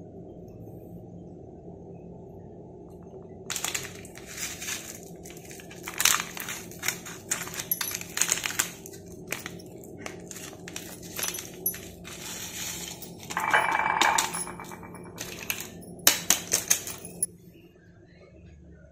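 Small foil instant-coffee sachet crinkling and crackling as it is torn open and handled, then coffee crystals poured into a ceramic mug with a brief ringing rattle, over a steady low hum.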